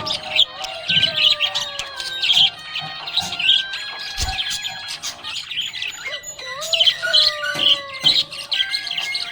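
Budgerigar chirping and warbling in quick, continuous runs of high chirps.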